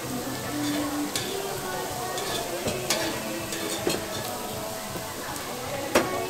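Pork intestines (makchang) and green onions sizzling as they are grilled and stirred, with a few sharp clicks on top, the strongest near the end.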